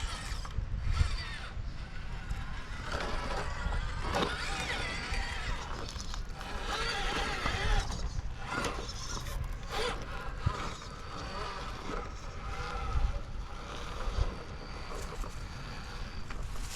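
Small electric motor of an RC rock crawler whining, its pitch rising and falling as the throttle changes, with scattered knocks and scrapes from the truck working over rock.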